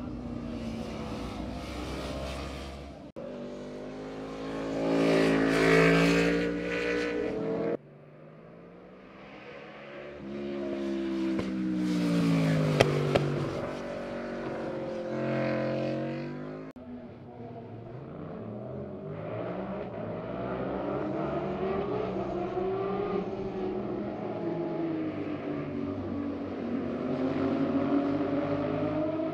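Sport motorcycles passing through canyon corners one after another, their engines rising in pitch as each approaches and falling away as it goes by, in separate passes that cut off suddenly. One of the bikes is an Aprilia sportbike.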